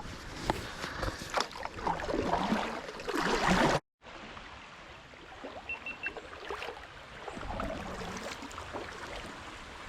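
Irregular knocks and clunks against a kayak hull, with water lapping and splashing. The sounds are busiest in the first few seconds, then the audio cuts out for an instant and they carry on more quietly.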